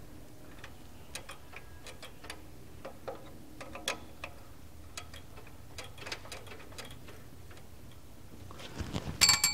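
Irregular light clicks and taps of hands and parts being handled in an air-cooled VW engine bay, with a louder, sharper clink near the end that rings briefly.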